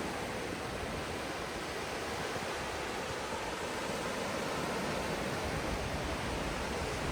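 Ocean surf washing on a beach, heard as a steady, unbroken hiss with an irregular low rumble underneath.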